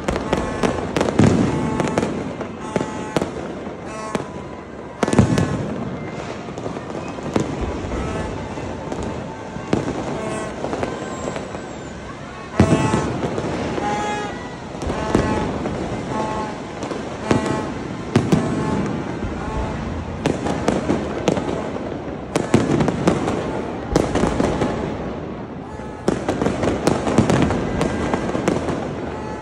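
Fireworks display: aerial shells bursting overhead in a near-continuous run of bangs and crackling, with sharp loud booms about five seconds in, near the middle and about two-thirds of the way through.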